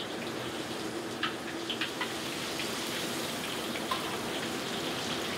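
Hot oil sizzling steadily as food deep-fries, with scattered small crackles and pops over a faint low hum.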